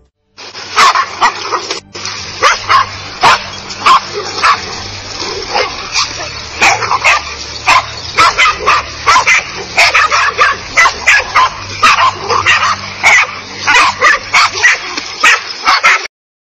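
Several dogs barking in a rapid, continuous frenzy, two or three sharp barks a second with some yips among them. It cuts off suddenly near the end.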